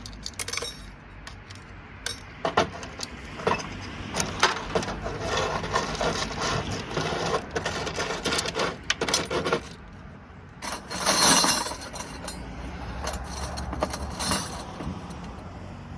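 Small loose metal parts from dismantled light sockets, screws and brass pieces, clinking and jangling as they are handled and sorted, with a longer, louder rattle about eleven seconds in.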